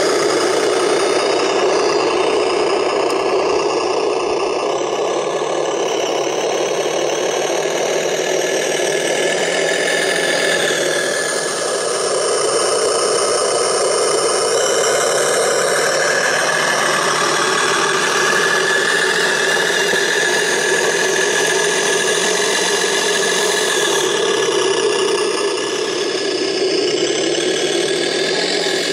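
Radio-controlled tractor's motor and drivetrain running steadily as it plows snow, a mechanical drone with a faint whine that shifts in pitch.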